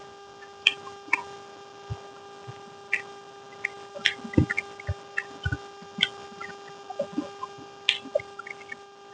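Close-miked eating sounds: irregular wet clicks and smacks of a person chewing, several a second, with a few soft low thumps, over a steady faint hum.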